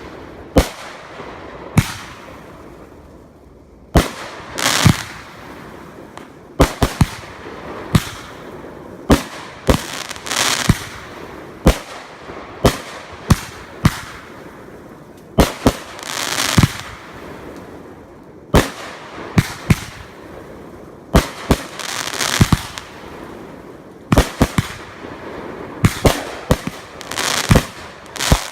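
Fireworks going off: an irregular string of sharp, loud bangs, some followed by a crackling, hissing shower as the shells burst.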